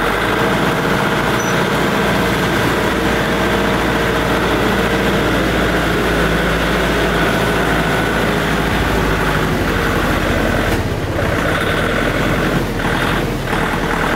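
A motor vehicle's engine running steadily, with road noise, while travelling. The sound breaks up briefly a few times near the end.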